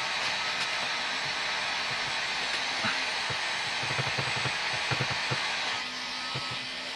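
Heat gun blowing steadily on a low setting, warming vinyl film as it is smoothed onto a worktop. A few soft low knocks come through about halfway through, and the blowing drops a little near the end.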